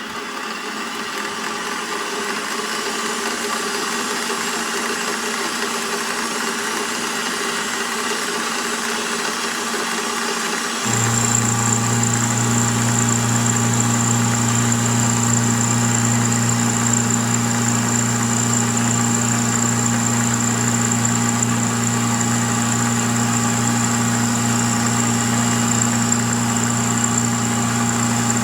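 Milling machine motor running steadily, with a hum and a thin whine that build up over the first few seconds. About eleven seconds in, a louder low hum and a high steady whine start abruptly and carry on, as a further drive on the machine comes in.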